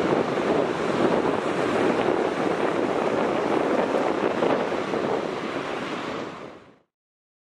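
Steady rushing outdoor noise with no distinct events, fading out near the end.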